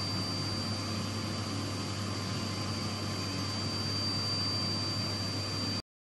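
2000 W LED snow machine running, its blower sending out a steady rushing noise with a low hum and a constant high whine over it; the sound cuts off suddenly near the end.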